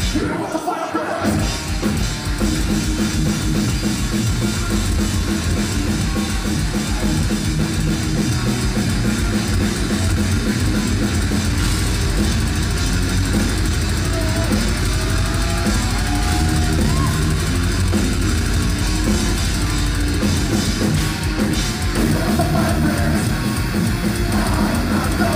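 Live heavy metal band playing loud: distorted electric guitars and a pounding drum kit with bass drum. The low end drops out briefly about a second in, then the full band comes back in.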